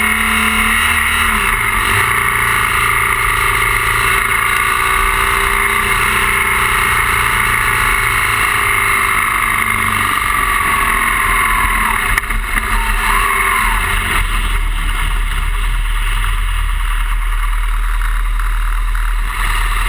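BMW R 1200 GS boxer twin engine running under way, with strong wind rush over the microphone. The revs drop about a second and a half in and again near the end.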